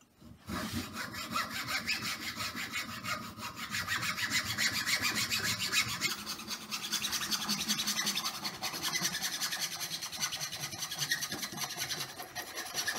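Hacksaw cutting through a wooden plunger handle, in quick, even back-and-forth strokes that start about half a second in and keep going steadily.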